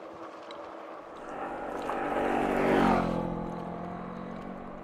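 Electric bike coasting downhill on a gravel road: tyre and wind noise with a hum that swells about two seconds in and fades away a second later.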